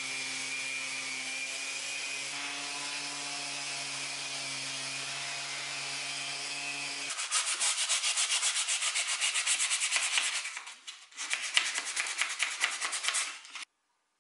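Random orbital sander running steadily on a wooden chair frame, a hum with a hiss over it. About halfway through it gives way to hand sanding with sandpaper on the wood: quick, loud back-and-forth scratching strokes with a brief pause, stopping shortly before the end.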